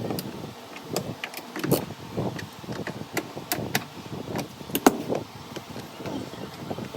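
Irregular clicks, knocks and light rattles of washing machine parts and hoses being handled and moved, with one sharper click about two-thirds of the way through.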